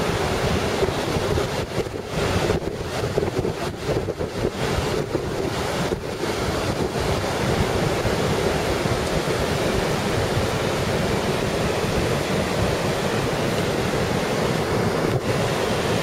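Surf washing in over a shallow sandy beach, with wind buffeting the microphone. The noise is uneven for the first several seconds, then steady.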